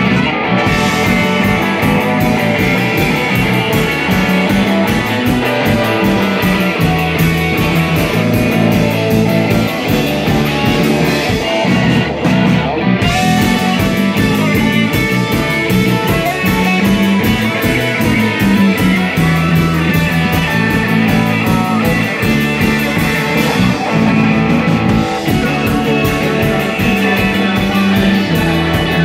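Live rock band playing: jangly electric guitars, electric bass and a drum kit keeping a steady beat.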